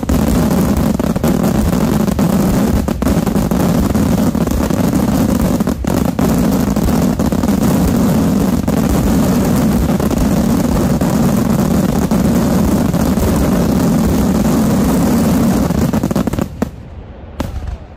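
Daytime aerial fireworks barrage: shell bursts and reports fired so fast they merge into one continuous loud rumble. It cuts off suddenly about sixteen and a half seconds in, with two last bangs after it.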